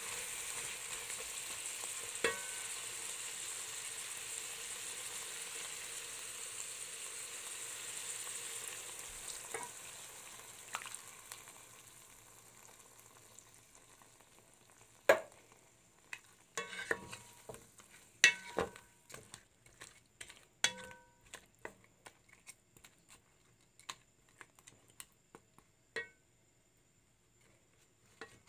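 Shrimp sizzling in hot oil in a pot while being stirred with a wooden spatula; the sizzle fades away about halfway through as coconut cream goes in and cools the pan. After that, the wooden spatula knocks and scrapes against the pot a dozen or so times.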